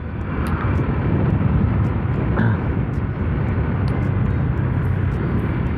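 Steady wind rush and road noise from riding a Honda Vario motor scooter, with the engine and traffic running underneath.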